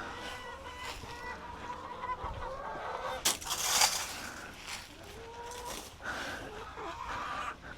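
Farm poultry calling, with drawn-out honking calls near the start and again in the second half. A short burst of noise comes a little over three seconds in.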